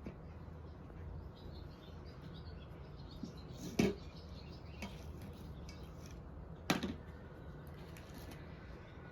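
Outdoor farmyard ambience with faint bird chirps and two sharp knocks, about four and seven seconds in.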